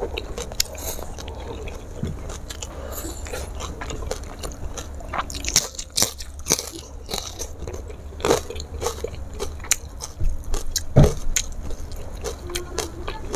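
Close-miked eating: crunchy bites and chewing of crispy fried food, with sharp crackling crunches throughout and a louder crunch about eleven seconds in.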